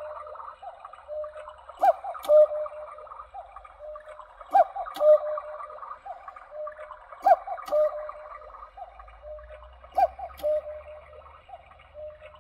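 Clock ticking in pairs of sharp ticks about half a second apart, the pair repeating roughly every two and a half seconds, over a steady warbling, chirping background.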